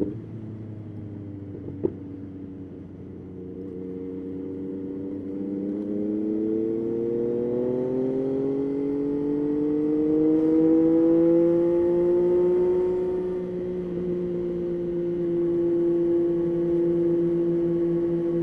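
Yamaha Tracer 9's three-cylinder engine under way, its pitch climbing smoothly for several seconds as the bike accelerates, then holding steady at a cruising speed. A short click comes about two seconds in.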